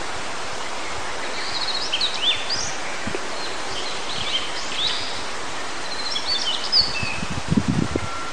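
Male Daurian redstart singing three short phrases of high chirps and quick pitch sweeps, a couple of seconds apart, over a steady rush of mountain stream and wind.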